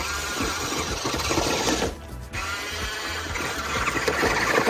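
Small electric motor and gears of a Ruko 1601AMP amphibious RC truck whirring as it drives through shallow creek water, churning up splashes. The sound drops away briefly about two seconds in.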